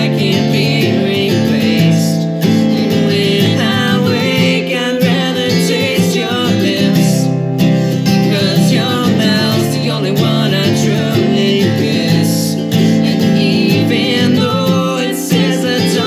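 Live acoustic folk duet: a mandolin and an acoustic guitar played together, with a man and a woman singing.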